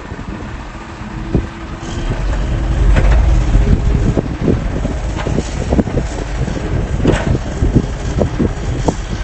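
Excavator engine running, pulling harder from about two seconds in, with many irregular knocks and clatters as it digs and loads earth into a dump truck.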